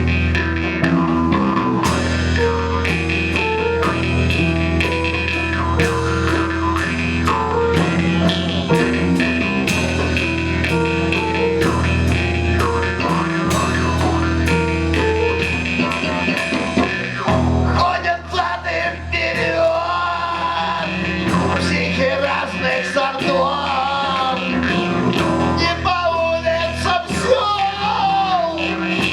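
Live band playing a blues-rock instrumental passage, with drum kit and bass guitar keeping a steady beat. About two-thirds of the way through, a wavering lead melody comes to the front.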